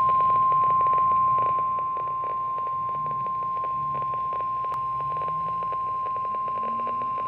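NOAA Weather Radio 1050 Hz warning alarm tone: a single steady high beep held for about seven seconds and cut off sharply, dipping a little in level about a second and a half in. It comes through a weather radio receiver with static crackle beneath, and it signals that a severe weather warning is about to be read.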